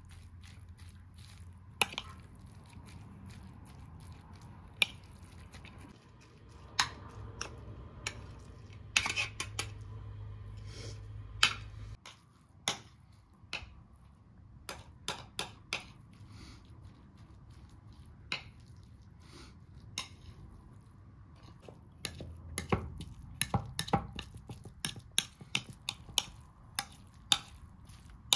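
Kitchen clatter: scattered clinks and knocks of dishes and utensils being handled, coming thicker near the end. A low hum runs underneath and cuts off about twelve seconds in.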